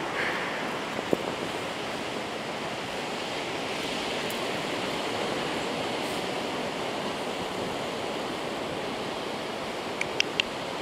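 Ocean surf washing on a beach: a steady, even rush of noise, with a few light clicks near the end.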